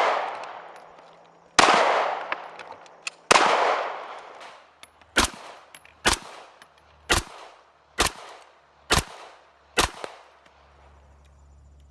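Beretta pistol firing: a shot with a long echoing tail about a second and a half in and another about two seconds later, then six sharper shots about one a second.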